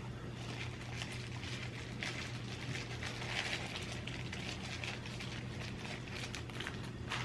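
Soft, irregular sticky crackles and clicks of hands handling fried tofu pouches and pressing vinegared rice into them (inari sushi), over a steady low hum.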